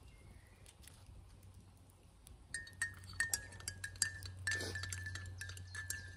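Metal spoon stirring coffee in a mug, clinking quickly and repeatedly against the side. Each clink leaves a short ring at the same pitch, starting a little over two seconds in.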